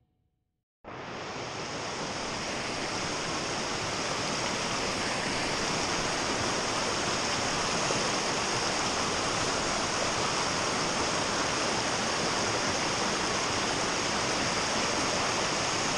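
Fast creek water rushing over rock ledges and riffles: a steady, dense rush that starts abruptly about a second in.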